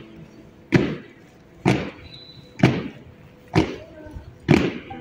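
Honor guard soldiers marching in slow ceremonial step, their boots stamping in unison on stone paving. Five sharp stamps come about once a second, each with a brief echo.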